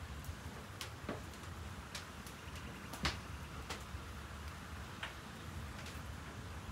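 Irregular sharp clicks and light knocks, about ten spread unevenly, over a steady low rumble, at work around wood-fired clay tandoor ovens.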